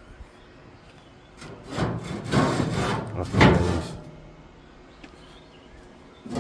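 Metal scraping against steel as a piece is pushed through a tight slot cut in a steel barrel, in a couple of long rasping strokes from about a second and a half in, loudest near the end of them, then quiet.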